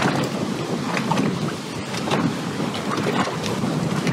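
Wind buffeting the microphone outdoors: a steady, rushing noise.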